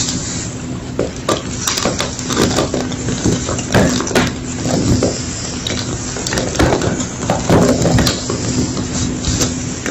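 Homemade gym chalk being crunched: an irregular run of dry crunches and crackles, several a second, over a steady low hum.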